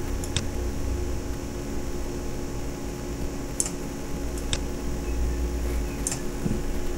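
A handful of sharp computer mouse clicks, spaced irregularly, over a steady low hum of computer or room noise.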